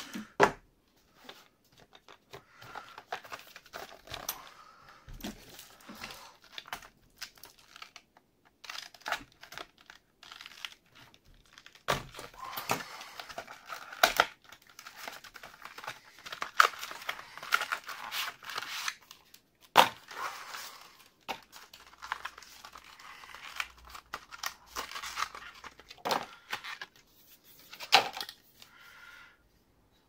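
Hands tearing and crinkling the cardboard and plastic packaging of a Kioxia SATA SSD as it is unboxed, with scattered sharp clicks and taps among the rustling. The loudest snap comes a little past the middle.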